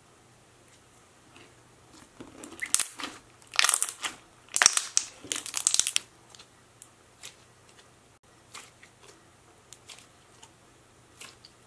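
Thick, holdable slime being stretched and squeezed by hand, making a cluster of clicking, crackling sounds between about two and six seconds in, then a few lighter clicks.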